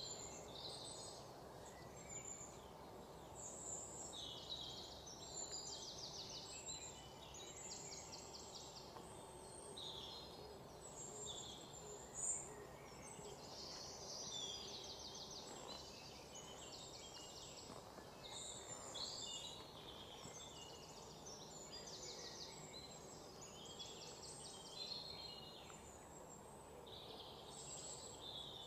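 Birds chirping and calling in short, high, repeated trills over a faint steady background hiss.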